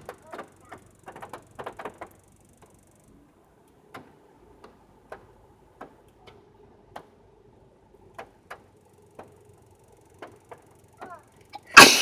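A single loud sneeze near the end, after several seconds of scattered faint clicks.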